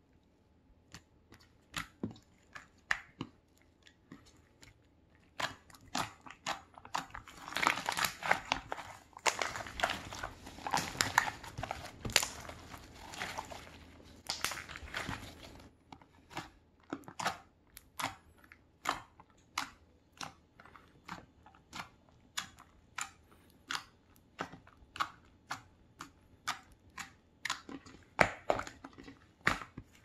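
Fingers pressing, kneading and poking a glossy slime, making sticky squishing and popping clicks. The clicks come sparsely at first, run dense and crackly for several seconds in the middle, then settle into a steady series of single pokes.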